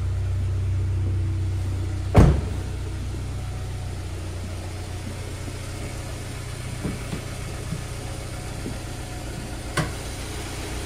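2001 Honda Prelude's four-cylinder engine idling steadily shortly after a cold start. A sharp knock sounds about two seconds in, and a fainter one near the end.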